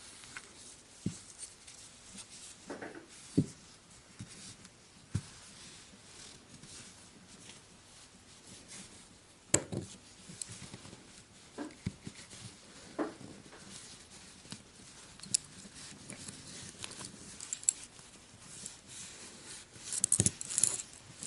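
Scattered small clicks and taps of a Kizer T1 folding knife being taken apart by hand, its scales and parts handled and set down, with a quick run of clicks near the end.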